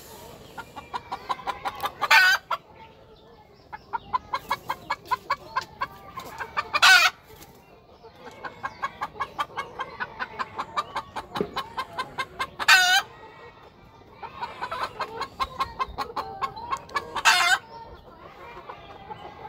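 Domestic fowl calling in rapid runs of short notes, about five a second, each run ending in one loud, longer squawk; this happens four times.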